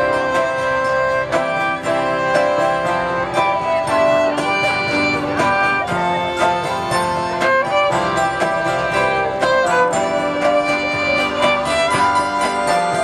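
Live folk-band instrumental passage: a violin plays the melody over rhythmic guitar strumming and keyboard accompaniment.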